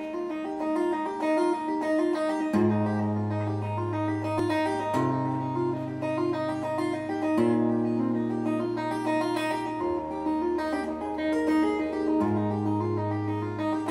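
Steel-string acoustic guitar played fingerstyle: a repeating picked pattern of bright notes, with deep bass notes joining about two and a half seconds in and changing every couple of seconds.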